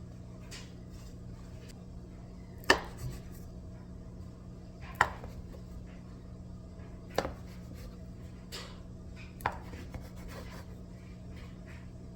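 A knife coming down on a cutting board in slow, separate cuts: four sharp knocks about two seconds apart, with lighter taps between, over a steady low hum.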